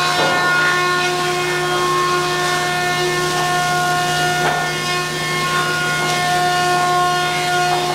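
Planing-mill machinery, the moulder line and its conveyors, running steadily with a constant whine made of several held tones. A few faint knocks come as pine boards are pulled off the outfeed.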